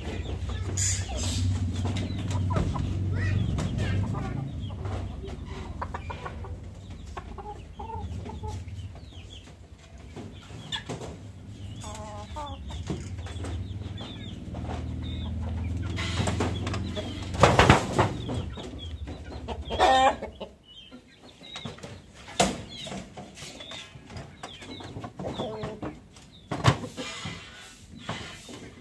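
Aseel chickens clucking and calling in wire-mesh cages, with scattered clicks and knocks; the loudest calls come about 17 and 20 seconds in. A low steady hum runs underneath until about 20 seconds in, then stops.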